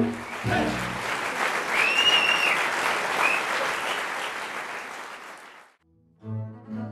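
Audience applauding after a double bass quartet's piece ends, with a short rising and falling whistle about two seconds in; the applause dies away, and near the end the four double basses start bowing again.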